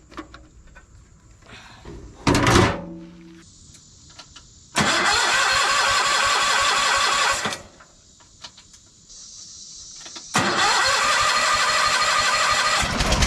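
Case 446 garden tractor's engine being cranked by its electric starter in two spells of about three seconds each, after a short burst about two seconds in, without catching. The owner puts the failure to start down to a weak battery.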